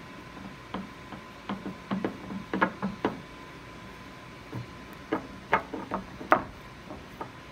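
Light knocks and taps as hands press pie-crust dough into a pie dish on a stone countertop, in two quick clusters: one from about a second in, and another after about five seconds.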